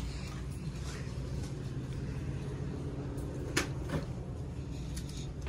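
Steady low hum of a shop's background noise, with one sharp click about three and a half seconds in and a fainter one just after.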